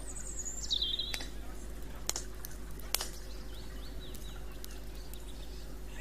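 Songbird singing a high whistled phrase that steps down in pitch during the first second, then fainter short repeated chirps in the middle. Beneath it a wood campfire crackles, with three sharp pops about a second apart.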